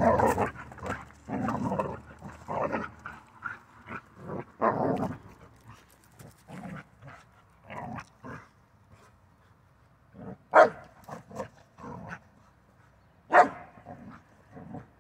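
Rottweiler puppy playing with a large stick, with scuffling sounds in the first few seconds and two short, sharp barks about ten and thirteen seconds in.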